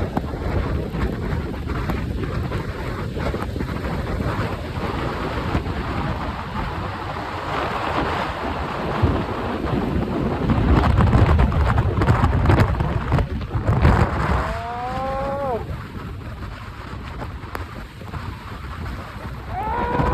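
Blizzard wind buffeting the microphone, a loud rumbling rush of noise that swells about halfway through. About fifteen seconds in, a short cry falls in pitch over the wind.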